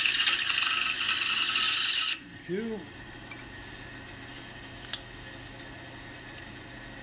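Pegas scroll saw blade cutting through a small block of wood for about two seconds, a loud rasping buzz that stops abruptly as the cut finishes. After it there is only a quiet steady hum, with a single sharp click about five seconds in.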